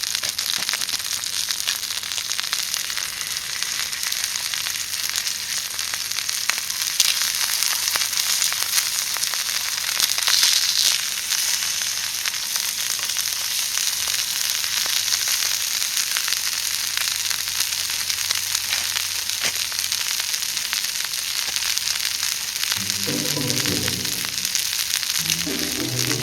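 Pork-wrapped rice balls sizzling over a wood fire: a steady frying hiss with fine crackles, swelling louder briefly about ten seconds in. Background music comes in near the end.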